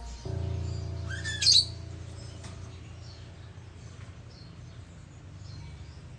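Pet parrots chirping: one sharp, rising chirp about a second and a half in, then fainter chirps, over a low steady tone that fades out after about two seconds.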